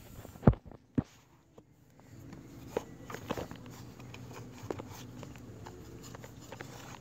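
Two dull knocks about half a second apart, then a second of near quiet. After that come light scattered taps and rustles of a hand against wood and carpet.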